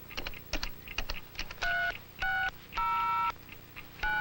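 Buttons clicking on a robot's chest keypad as a number code is punched in, then a string of four touch-tone-like beeps, each two tones at once, the third held longer: the robot's computer running the entered program.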